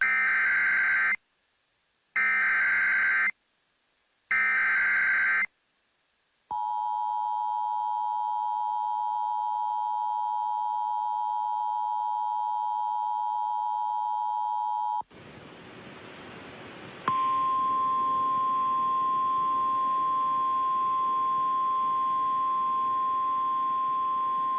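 Emergency Alert System tones. Three short chirping bursts of SAME header data come about a second apart, then the steady two-tone EAS attention signal for about eight seconds. After about two seconds of static hiss, NOAA Weather Radio's single steady alert tone begins. Together they signal the start of a new weather warning.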